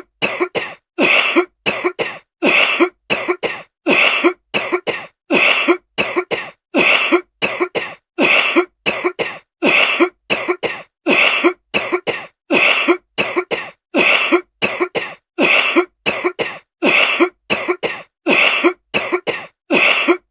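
A woman coughing over and over in an even rhythm: a strong cough followed by two or three shorter ones, the same fit repeating about every second and a half.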